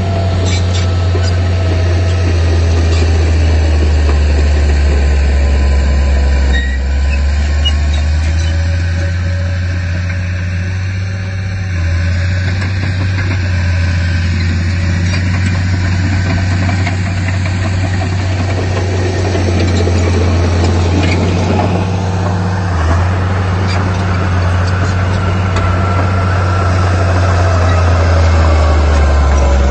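Heavy diesel engine of earthmoving machinery running with a deep, steady drone, its note dipping briefly a few times.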